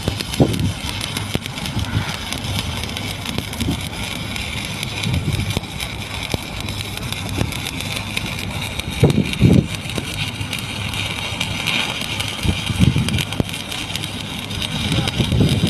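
Stick (shielded metal arc) welding arc crackling steadily during a flat-position cap pass, over a low steady hum, with a few dull low thumps.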